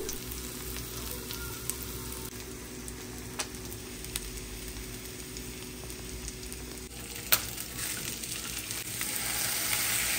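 Salmon fillets sizzling as they fry in a dry nonstick pan with no oil, cooking in their own released fat. A spatula and fork click against the pan a few times, and the sizzle grows louder near the end as the fillets are turned.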